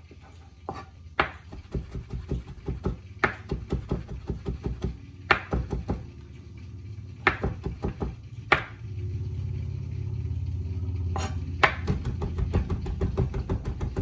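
Chef's knife chopping mint leaves on a plastic cutting board: rapid rhythmic knocks, about five a second, with a harder knock every two seconds or so. A low steady hum joins in for a couple of seconds past the middle.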